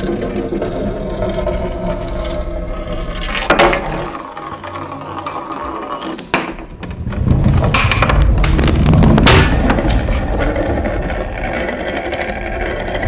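Film soundtrack: a low droning music bed with clicks and scrapes over it, a sharp crack about three and a half seconds in, and a louder stretch of dense clattering from about halfway to near the end.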